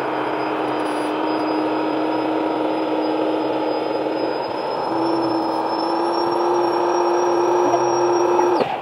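Electric air pump running steadily while inflating an air mattress. Its note steps up slightly about five seconds in, and it cuts off suddenly near the end.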